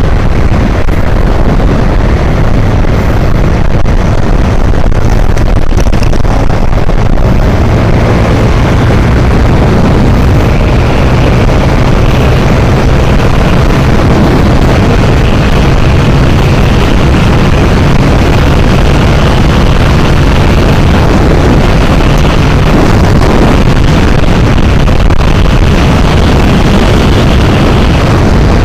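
Motorcycle riding at speed: loud, steady wind rush on the microphone over the low, even drone of the running engine.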